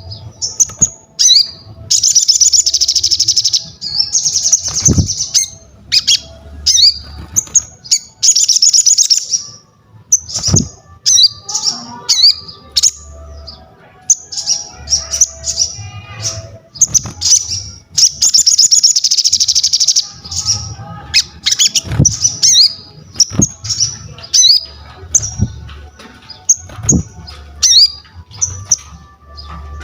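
A sogon songbird singing vigorously: rapid sharp whistled notes broken by long, dense chattering trills of a second or two, repeated several times. A few sharp knocks and a low hum lie underneath.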